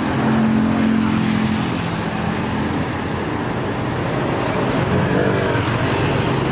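Road traffic: a motor vehicle engine running with a steady hum for the first few seconds, then another engine passing about five seconds in, over a continuous traffic noise.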